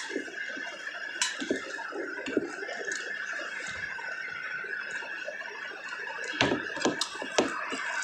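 Close-up eating sounds of a person spooning and eating curd: soft chewing and mouth noises with a few sharp clicks, several of them about six to seven and a half seconds in, over a steady hiss.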